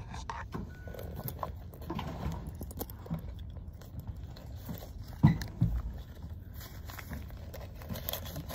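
Rustling and clicking of a handbag and its strap clip being handled close to the microphone, with two louder knocks about five seconds in.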